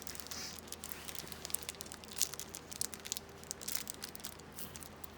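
Foil booster pack wrapper crinkling and crackling in irregular bursts as it is handled and worked open by hand.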